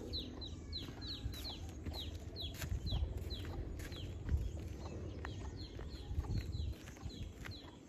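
Chicks peeping: short, high peeps falling in pitch, about two or three a second, over a low rumble.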